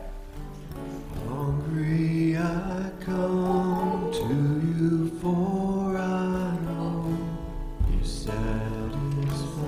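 Slow music with guitar and singing, a hymn played during a church service, its melody moving in long held notes.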